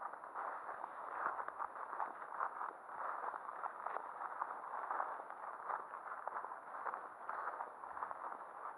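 Continuous rustling and crackling of tall grass and weeds brushing against legs and camera, with irregular footsteps on a grassy path, muffled as through an action camera's housing.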